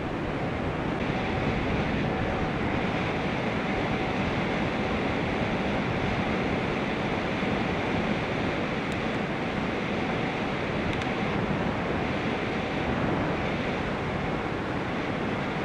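Steady rushing wind noise over the microphone of a camera carried on a moving bicycle, with road rumble underneath.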